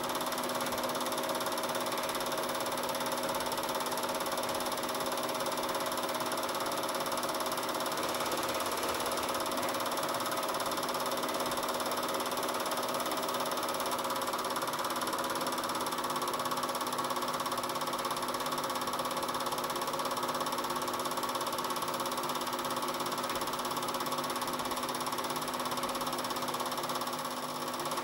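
Film projector running with a steady mechanical clatter from its film-advance mechanism, as heard when a silent 8 mm home movie is played back and recorded.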